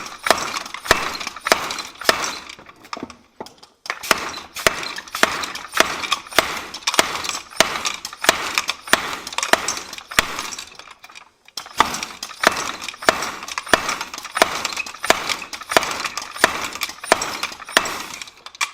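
Rapid, steady hammer blows on a large piece of hot steel, about two to three strikes a second with a metallic ring, in three runs broken by short pauses about three and a half seconds in and again near eleven seconds.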